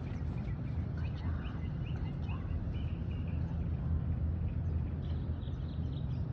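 Outdoor field ambience: a steady low rumble, with faint short chirps now and then.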